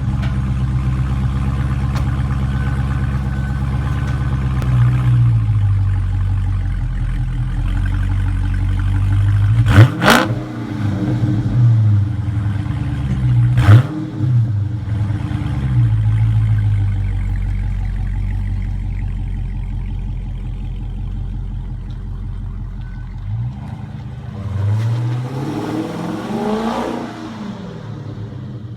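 Dodge Charger Scat Pack's 392 HEMI V8 exhaust idling with a deep rumble, revved several times and falling back to idle. The two loudest, sharpest blips come about ten and fourteen seconds in, and there is a quick run of revs near the end.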